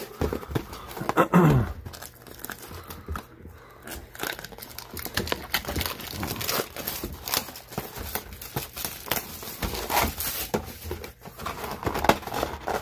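Plastic shrink-wrap and packaging on a Magic: The Gathering set booster box crinkling and tearing as it is opened by hand, in a busy irregular crackle.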